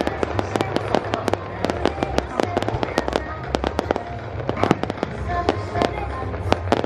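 Fireworks display going off: a dense run of sharp crackling pops and bangs, several a second, over a low rumble.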